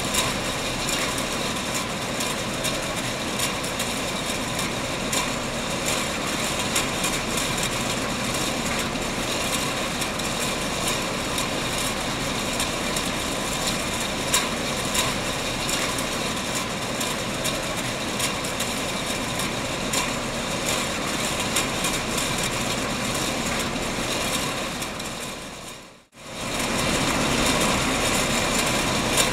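Canning-line machinery running steadily, with frequent small clicks and clinks of metal cans jostling along a conveyor. The noise fades out briefly near the end and comes straight back.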